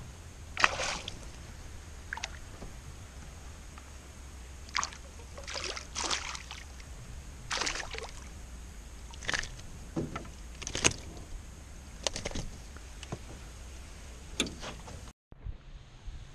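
Water splashing and sloshing with knocks against a small jon boat, in irregular short bursts about a dozen times, over a steady low background noise.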